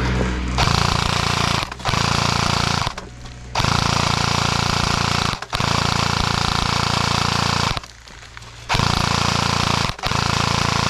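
Electric airsoft gun firing long full-auto bursts, a fast rattling buzz, in about six bursts broken by short pauses, the longest pause near the end.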